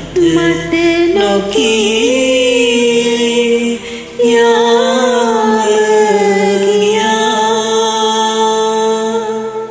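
A man and a woman singing a karaoke duet over a backing track, ending the song on long held notes with vibrato, after a brief break just before the middle.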